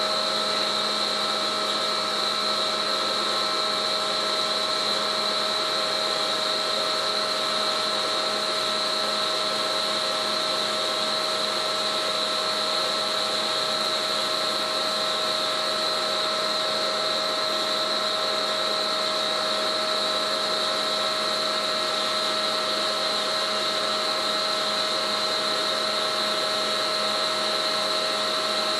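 BP50 hydraulic winch running on a test stand, driven by its hydraulic power unit: a steady mechanical hum with a high, constant whine that does not change.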